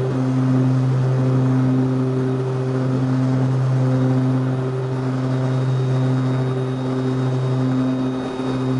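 Twin Garrett TPE331 turboprop engines of a Grumman S-2T air tanker at high power during the takeoff roll, heard inside the cockpit: a steady propeller drone with a deep hum. A thin high whine joins about halfway through.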